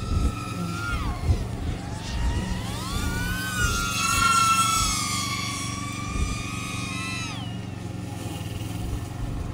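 FPV drone (DJI Avata on an Axisflying 3.5-inch motor and prop kit) whining in flight, its pitch rising and falling with the throttle. The whine dips about a second in, climbs from about two seconds, is loudest around four to five seconds in, and falls away near seven and a half seconds. Wind gusts on the microphone underneath.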